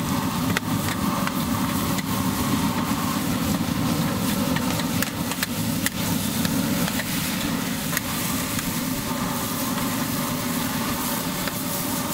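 Gas wok burner running with a steady low rumble, with many short sharp clicks over it.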